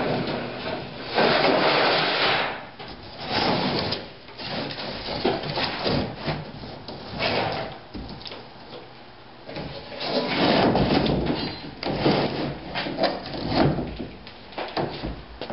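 A large flexible sheet of trailer siding being lifted and flexed off a sheet of OSB, rustling and rattling, then the OSB panel being slid and scraped on the workbench, with knocks and rubs as it is handled. No saw is running.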